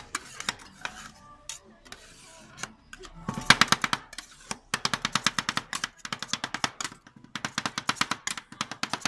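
Metal spatulas chopping ice cream and fruit on a frozen metal plate: rapid clacking of about ten strikes a second, in runs with short breaks, starting about three seconds in.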